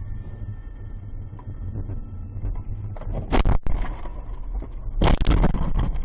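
Steady low road-and-engine rumble inside a car, broken by two loud crashing impacts about a second and a half apart, the first about three seconds in, as the dashcam car skids off the road.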